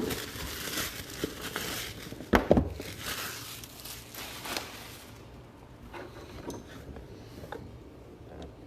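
Plastic wrapping crinkling and tearing as a sealed trading-card box is unwrapped and opened by hand, with one loud knock about two and a half seconds in; after about five seconds only light taps of handling.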